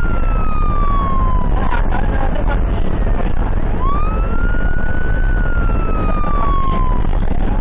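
Ambulance siren on wail: a slow rise and long fall in pitch, repeating about every four seconds, over steady road and engine noise from the moving vehicle.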